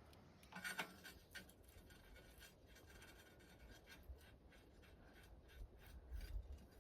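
Near silence with a few faint scrapes and light clicks.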